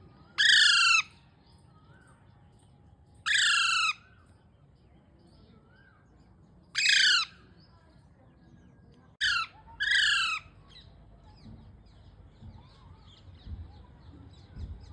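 Baby parrot giving a series of loud, harsh calls, each about half a second long, roughly every three seconds. The fourth call comes as a short call followed quickly by a longer one. Faint softer chirps fill the gaps between calls.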